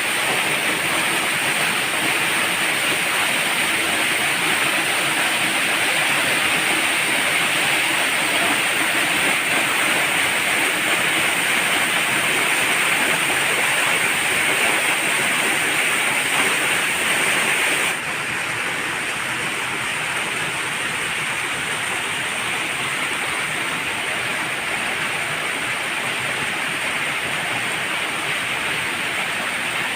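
Waterfall rushing steadily, a loud even roar of falling water. About two-thirds of the way through it abruptly drops a little in level and loses some of its hiss, then runs on evenly.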